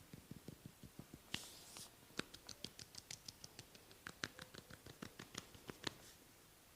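A quick run of soft massage taps and pats on skin, about six a second. They start dull and turn sharper and brighter about a second in, then stop near the end.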